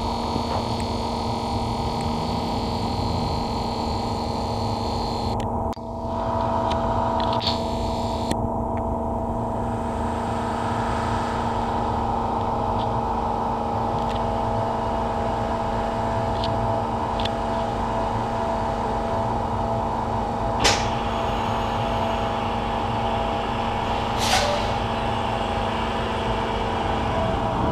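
Irish Rail 8100 class DART electric train standing at the platform, its onboard equipment humming steadily with several fixed tones. A high thin whine cuts out about five seconds in, and two brief sharp sounds come near the end.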